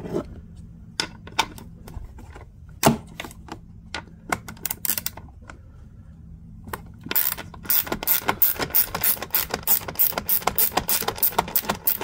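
Hand ratchet with an 8 mm socket working a screw inside a small generator's housing: a few scattered clicks and knocks as the socket is fitted, then a fast, even run of ratchet clicks, about five a second, from about seven seconds in.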